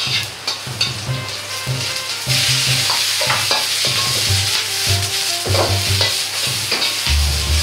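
Garlic and ginger sizzling in hot oil in a carbon-steel wok, stirred with a metal ladle that scrapes and knocks against the pan. A little over two seconds in, vegetables go into the hot wok and the sizzle jumps to a loud, steady hiss as they are stir-fried.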